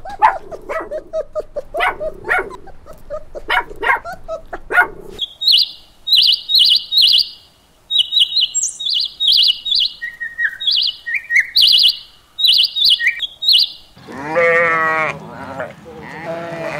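Young dogs barking and yipping for about five seconds, then small birds chirping in short, quick phrases, then sheep bleating with a wavering pitch near the end.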